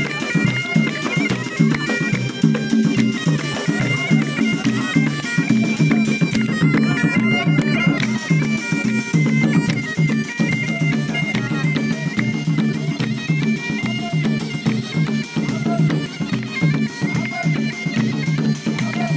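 Bagpipe playing a melody in held, stepping notes over its steady drone, with hand drums beating a rhythm underneath.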